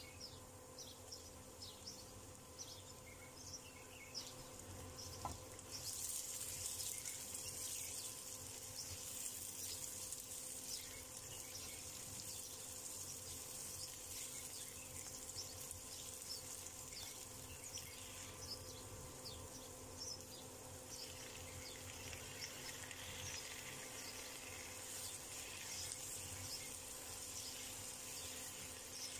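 Diced onions and bell peppers sizzling in hot oil in a nonstick frying pan, a steady hiss full of small crackles that gets louder about six seconds in.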